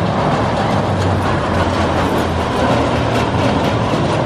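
Steel looping roller coaster train running along its track: a loud, steady rumble.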